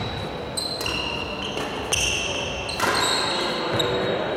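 Badminton rally: sharp racket strikes on the shuttlecock roughly once a second, with high squeaks of players' shoes on the court floor.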